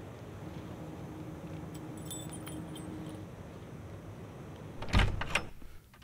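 Keys jingling as a front door is unlocked, then two loud thuds of the door about five seconds in.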